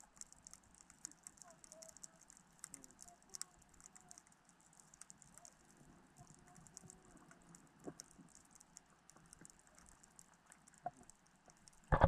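Faint, steady underwater crackle of many tiny clicks, heard through a submerged GoPro's housing.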